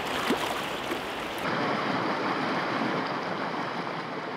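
Rushing water of a river rapid, a steady wash of whitewater over rocks that gets louder about one and a half seconds in.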